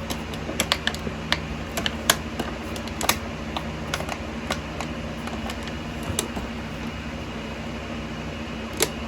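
Scattered sharp clicks and taps, thick in the first four seconds and then sparse, over a steady low hum of a running generator.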